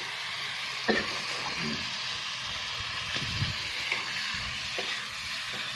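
Spicy pork stir-fry sizzling steadily in a pan over a high flame, with a few sharp clicks of a utensil against the pan as it is stirred.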